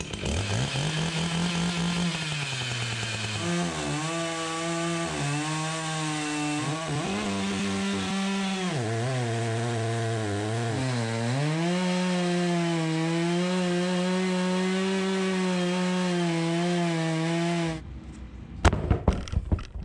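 Two-stroke Echo chainsaw on a long bar cutting into a large upright log. The engine revs up, dips and recovers several times as the chain bites and bogs under load, then holds a steady high pitch through the cut before cutting off near the end. A few sharp knocks follow.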